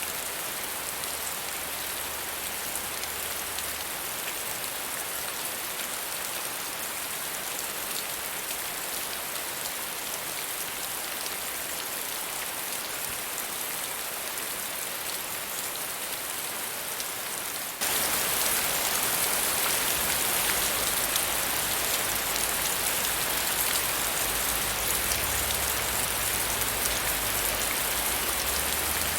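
Steady rain falling, an even hiss of many drops. About eighteen seconds in it abruptly becomes louder and brighter.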